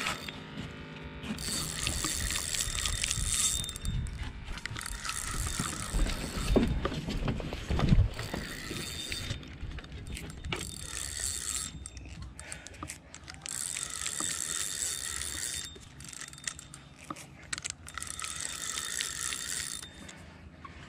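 Spinning fishing reel cranked in repeated bursts of two to three seconds, its gears whirring as line is wound in, with a couple of low knocks in between.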